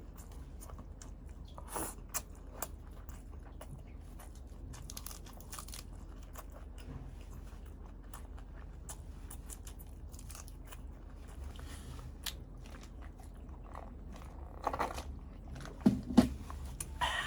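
Close-miked chewing and biting of balut, a boiled fertilized duck egg: wet mouth sounds with many small crunches and clicks, and a few louder crunches near the end, over a steady low hum.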